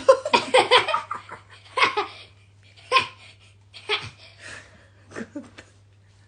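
Laughter in a run of quick pulses, then in short separate bursts, a young girl's giggling among it.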